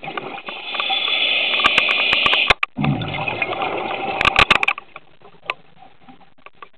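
Scuba diver's regulator breathing heard underwater: two long noisy breaths one after the other, the second starting with a low bubbling rumble, with sharp clicks in the middle and about four seconds in, then only faint ticks.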